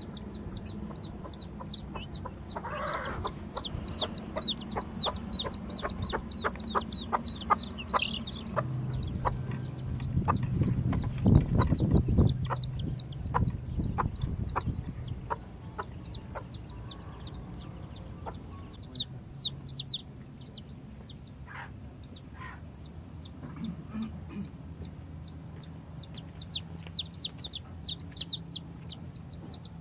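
Newborn chicks peeping: a continuous stream of high, downward-slurred peeps, several a second. A low rumble rises under them around the middle.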